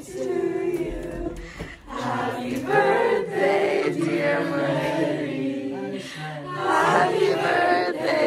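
A group of voices singing together in held notes, with a short break about two seconds in.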